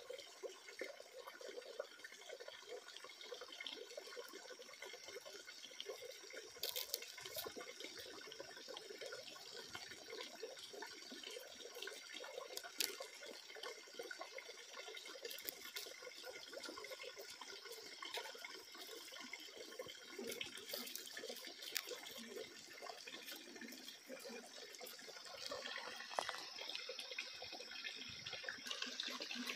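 Water running and trickling steadily, with a couple of faint clicks.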